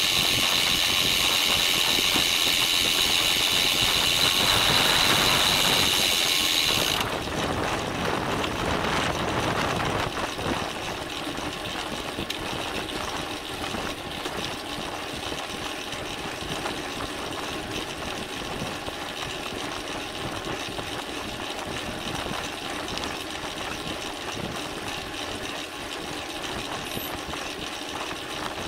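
Bicycle being raced, heard through a camera mounted on the bike: rattling of the bike over road noise, with a loud high hiss that cuts off suddenly about seven seconds in.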